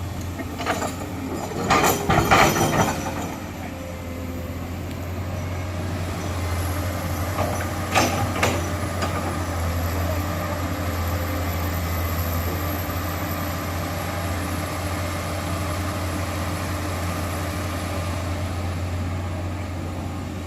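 Diesel engine of heavy earthmoving machinery running steadily, with a burst of loud clanks and knocks about two seconds in and a shorter one around eight seconds in.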